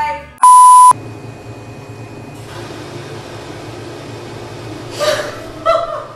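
A loud, steady electronic beep lasting about half a second, edited in like a censor bleep, followed by low room hum; near the end a woman laughs briefly, twice.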